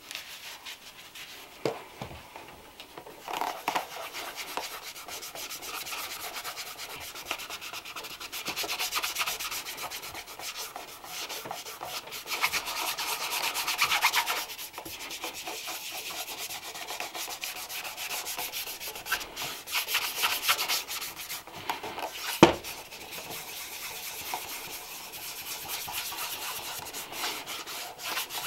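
Repeated rubbing strokes over a leather shoe during polishing, a dense scratchy noise. One sharp knock about three-quarters of the way through.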